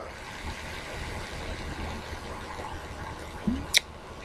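Steady low background hum with a faint hiss, and a single sharp click near the end.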